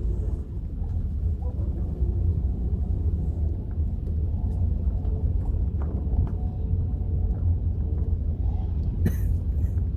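Steady low rumble of a car driving, heard from inside the cabin. A short sharp noise about nine seconds in.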